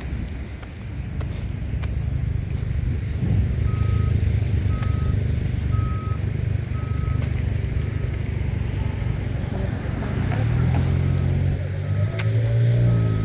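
Vehicle reversing alarm beeping about once a second over the low running of a heavy vehicle's engine, which grows louder near the end.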